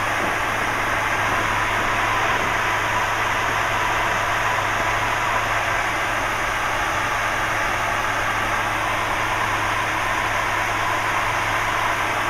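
Steady drone of a light aircraft's engine and propeller heard inside the cockpit in flight: a constant low hum under a broad rushing noise.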